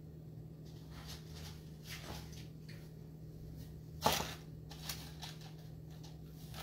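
Quiet kitchen handling sounds over a steady low hum: a few soft knocks, and one sharper clattering knock about four seconds in as a round metal cake pan is handled on a wooden board while dough is pressed into it.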